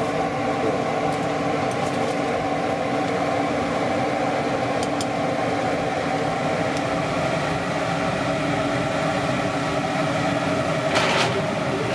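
Steady mechanical hum with several held tones, like a motor or fan running. It is overlaid by a few light scrapes and ticks of a metal spoon stirring rice in a cast pot, the clearest near the end.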